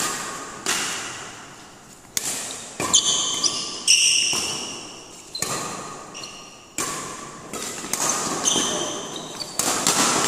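Badminton rally: rackets striking the shuttlecock about once a second, each crack ringing on in the reverberant hall, mixed with short high squeaks of court shoes on the floor.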